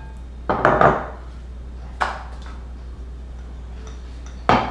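Wooden rolling pin rolling dough on a wooden rolling board, with three short knocking, rumbling strokes: about half a second in, at two seconds, and near the end. A steady low hum runs underneath.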